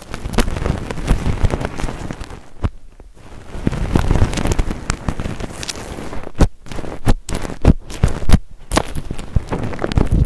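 Slime being worked by hand, crackling with many sharp pops and clicks that come thick and irregular.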